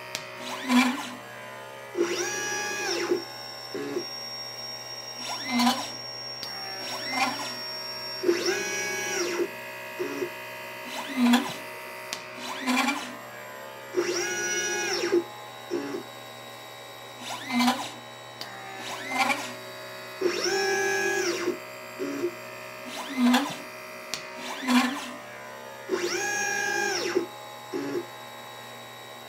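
LitePlacer pick-and-place machine's stepper motors whining as the head moves to pick and place capacitors and resistors, the pitch rising, holding and falling with each move. Short buzzes and clicks come between the moves, and the cycle repeats about every six seconds.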